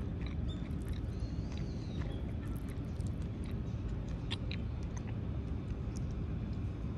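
Eating sounds: scattered small clicks of wooden chopsticks against a clear plastic takeaway tray as food is picked up, over a steady low rumble.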